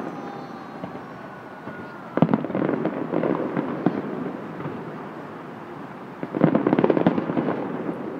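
Aerial firework shells bursting: two volleys of bangs and crackle, the first about two seconds in and the second about six and a half seconds in, each lasting roughly a second and a half.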